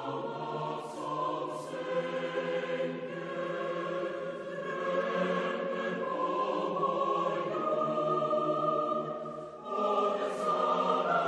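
Choral music: a choir singing slow, sustained chords, the music of the NRK Norwegian television New Year's Eve sign-off. It dips briefly near the end, then swells back louder with higher voices.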